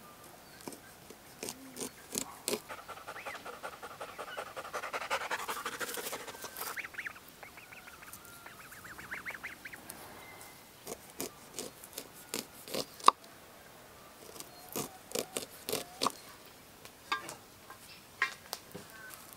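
White domestic waterfowl calling: a stretch of drawn-out calls, then a quick run of short repeated calls. Scattered sharp clicks and knocks come before and after.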